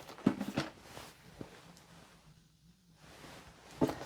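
A cardboard box being handled: a few light knocks and rustles in the first second, a quiet stretch, then another short knock near the end.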